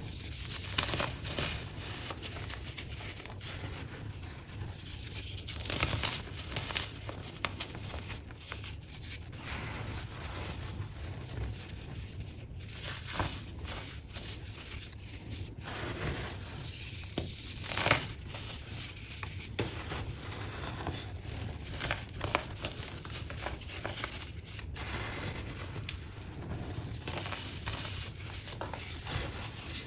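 Crunchy baking soda being crushed by hand, crackling and crunching in irregular bursts, with one louder crunch about eighteen seconds in.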